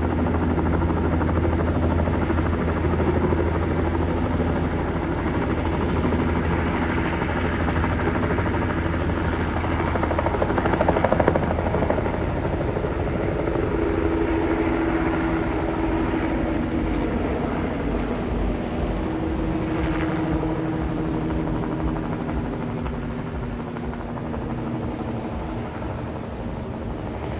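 Helicopter running with a steady rotor and turbine noise. It swells briefly about ten seconds in, then gradually gets quieter, its deep low throb dropping away.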